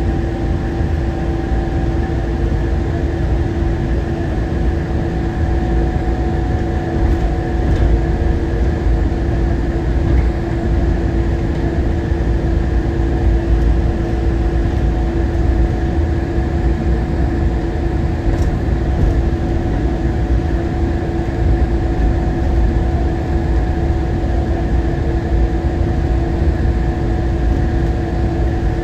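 Newark AirTrain monorail car running at speed, heard from inside: a steady rumble and rushing noise with a constant drive whine of several held tones.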